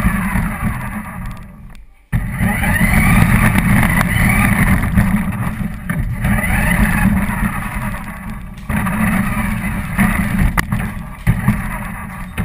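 RC car motor whining, its pitch rising and falling as the car speeds up and slows, over a heavy low rumble. The sound cuts out abruptly about two seconds in and picks up again a moment later.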